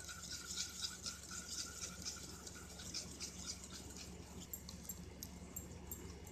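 Wire whisk beating batter in a stainless-steel bowl: quick, regular scraping strokes of the whisk against the metal, several a second, growing softer after about four seconds.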